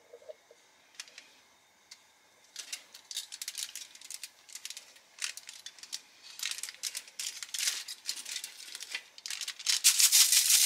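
Aluminium foil lining a baking sheet crinkling and rustling as hands press puff pastry lattice onto the beef Wellingtons. It comes in irregular crackly bursts after a couple of faint clicks and is loudest near the end.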